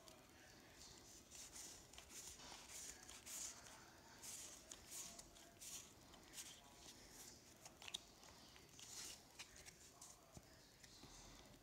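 Faint swishing of Pokémon trading cards sliding against one another as a pack's cards are flipped through one by one, with a single sharper click about eight seconds in.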